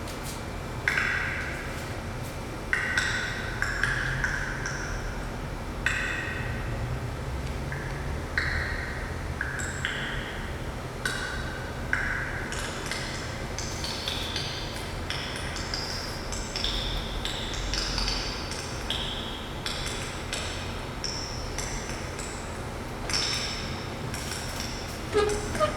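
Ancient glacier ice popping, heard as a steady, irregular stream of short ringing pings at many different pitches, some clear and bell-like, a few sharper clicks among them.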